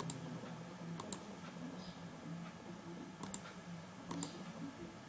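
Faint computer mouse clicks, a few scattered single clicks and two quick pairs, over a low steady hum.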